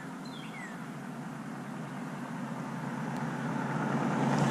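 Steady outdoor rushing noise that slowly grows louder, with a few short falling chirps in the first second.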